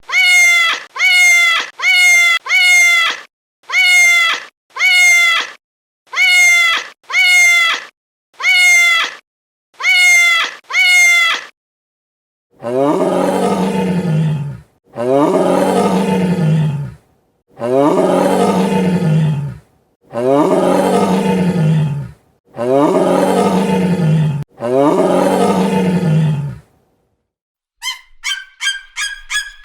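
Wild cat calls: about ten short meow-like calls, each falling a little in pitch, then six long, low roaring calls of about two seconds each. Near the end comes a quick run of short, high calls.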